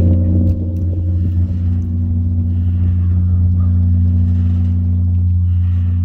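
Long ringing of a large temple bell after a strike: a deep, steady hum with several overtones, the higher ones dying away in the first second while the low hum holds.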